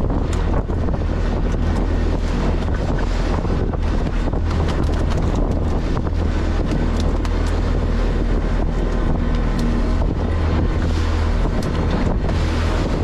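Fishing boat's engine running steadily with a low drone, with wind buffeting the microphone.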